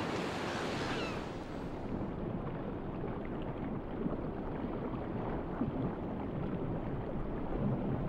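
Sea water: choppy surface water lapping and splashing for about the first two seconds, then a dull, muffled rush of water as heard underwater.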